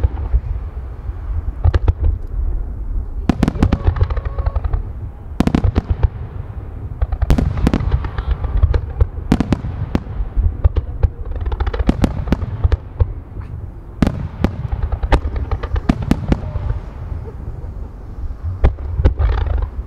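Starmine fireworks barrage: aerial shells launched and bursting in rapid succession, clusters of loud sharp bangs every second or two over a continuous low rumble.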